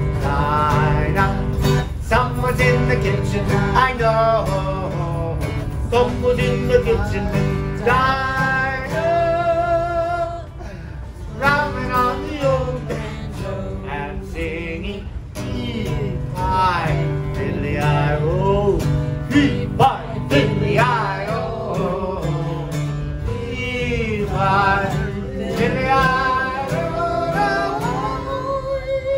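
Acoustic guitar strummed steadily while a harmonica in a neck rack plays a wavering melody over it, one man playing both.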